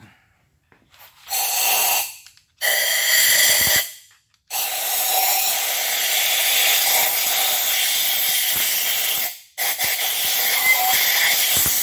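Compressed-air blow gun blasting into an engine block's head bolt holes to clear out loosened gunk and thread debris. There are two short hissing blasts of about a second each, then two longer blasts of several seconds.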